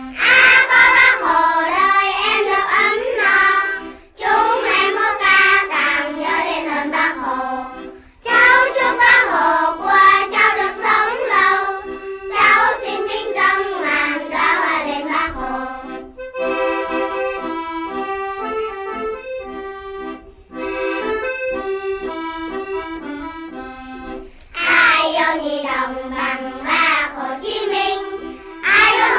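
Vietnamese children's song sung by a child's voice over an instrumental accompaniment. The voice drops out about halfway through for an instrumental interlude of steady stepped notes, and the singing comes back near the end.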